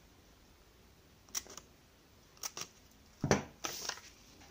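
Paper pattern pieces being handled: a few short rustles and crinkles, with one louder pat about three seconds in as the paper is laid on the table.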